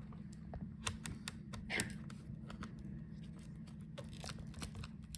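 Small, scattered clicks and taps of fingers and tools working the video cable connector off a laptop motherboard, over a steady low hum.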